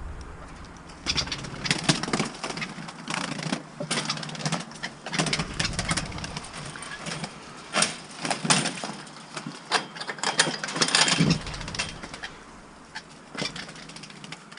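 Pigeon's wings flapping in irregular bursts, with scuffling of puppies scrambling after it; the busiest flurry comes about two-thirds of the way in.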